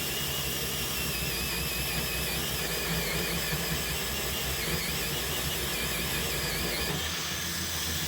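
Ryobi drill running a 2-inch hole saw into a 2x4 through a Milescraft Drill90PLUS right-angle attachment. The motor whines steadily, its pitch wavering as the saw cuts under load. The attachment's gears add no noise of their own.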